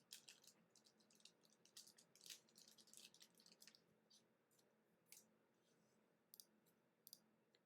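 Faint, irregular clicks and light scrapes of 2021 Prizm Draft football cards being slid and flipped by hand. They come thickly over the first four seconds, then as a few single clicks.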